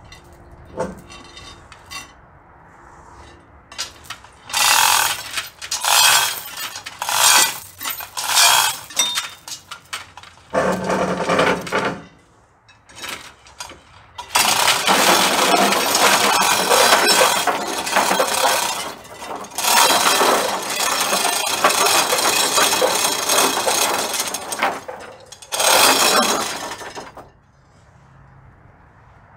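Manual chain hoist being worked by its hand chain to lift a load: rattling chain and clicking ratchet. It comes in short separate bursts at first, then runs steadily for about ten seconds, with one last burst near the end.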